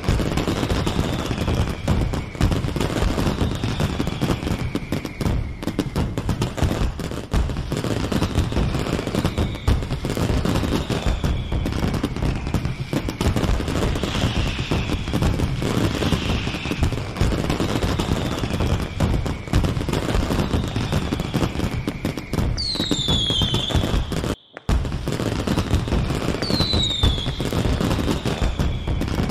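Recording of a fireworks display: continuous rapid bangs and crackling, with falling whistles repeating every second or so. The sound briefly drops out near the end.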